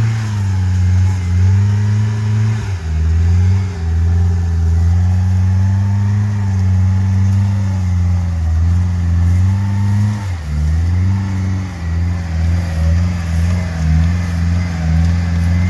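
Car engine running at low revs off-road, its pitch wavering up and down. The revs drop sharply about 3 seconds and 10 seconds in, and from about 11 seconds the engine pulses unevenly.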